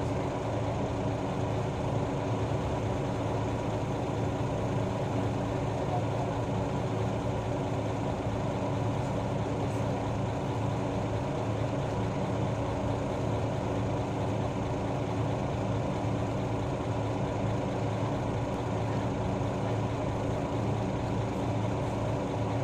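A route bus's diesel engine heard from inside the passenger cabin, running at a steady, unchanging speed with a low hum.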